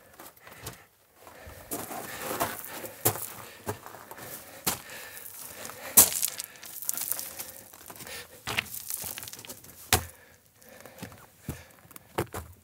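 Footsteps crunching over loose broken rock and gravel, with irregular sharp clicks of stones knocking together; one sharp knock about halfway through is the loudest.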